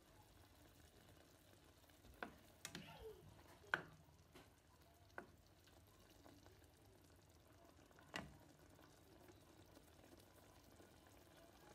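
Spatula stirring chicken curry in a nonstick pan: about five light knocks and taps against the pan, the loudest near four seconds in, over a faint simmering hiss.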